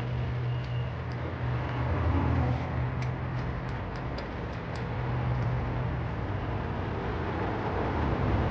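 An engine running steadily with a low hum, with a few light ticks about three to five seconds in.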